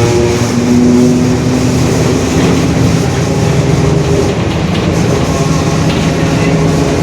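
Mercedes-Benz OF-1721 bus driving, its running drowned under a droning whine from a growling differential that drifts slightly in pitch.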